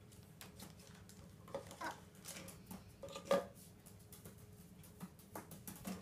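A parrot's beak tapping and knocking a small plastic bottle on a kitchen bench: a run of light clicks with a few louder knocks, the loudest a little over three seconds in.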